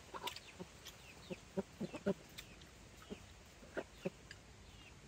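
Chickens clucking: a string of short, low clucks every few tenths of a second, with faint high chirps between them.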